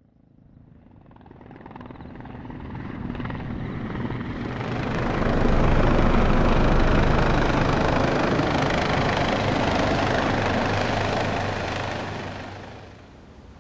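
A helicopter approaching and passing close. The rotor chop and engine noise build up over about five seconds, joined by a steady high turbine whine, then drop away sharply about a second before the end.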